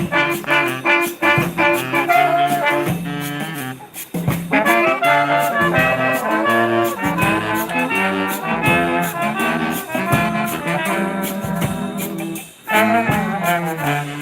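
New Orleans-style street brass band playing a groove live: brass horns over drums, with short breaks in the music about four seconds in and again near the end.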